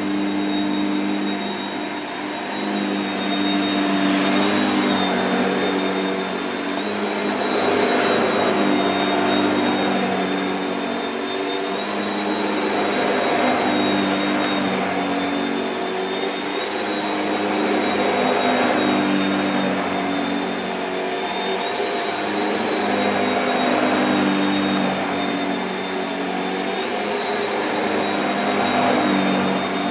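Shark Powered Lift-Away NV681UKT upright vacuum cleaner running on carpet: a steady motor hum with a thin high whine, swelling and easing every few seconds as the floor head is pushed forward and pulled back.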